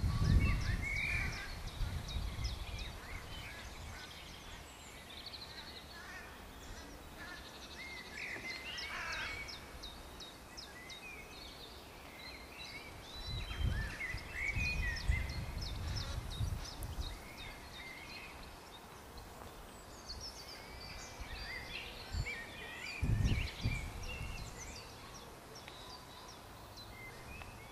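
Small songbirds singing and calling, a steady stream of short chirps and warbled phrases, with low rumbles on the microphone about halfway through and again near the end.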